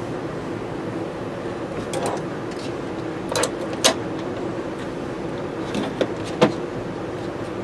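A steady machine hum with a handful of sharp clicks and light taps, about five in all, the loudest near four seconds in and again past six seconds.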